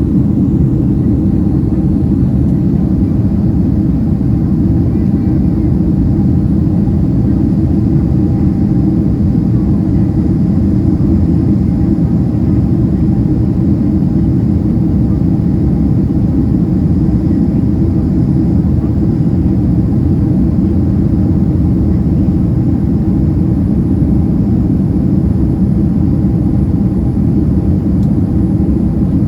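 Inside the passenger cabin of a Boeing 767-300ER: a steady low rumble from the jet engines, with a faint steady hum above it, not changing throughout.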